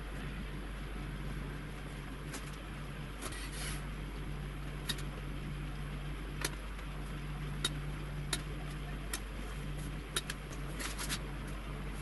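Ballpoint pen strokes and short taps on a paper notebook while a pattern is drawn and dimensioned, a dozen light clicks spread irregularly. A steady low hum runs underneath.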